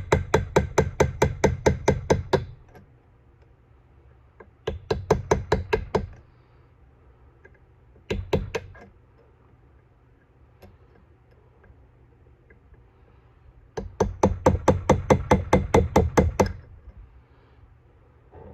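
Hammer rapidly tapping a steel punch set against a threaded part in a lathe's compound, about seven sharp metal taps a second, in four runs with pauses between. The punch is driving the brazed-in threaded piece round to unscrew it, and it is turning.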